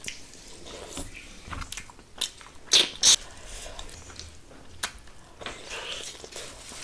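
Close-miked eating sounds: chewing and wet mouth noises with scattered sharp clicks, the loudest two close together about three seconds in, while fingers mix rice and curry on the plate.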